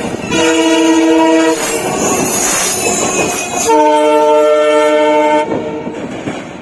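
WDG4 diesel locomotive's multi-tone air horn sounding two long blasts, the second slightly lower in pitch. Between and after them comes the rush and clatter of the passing train, fading near the end.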